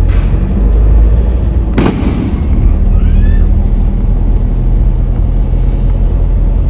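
Steady low rumble of a moving vehicle with wind on the microphone, and one sharp firecracker bang about two seconds in.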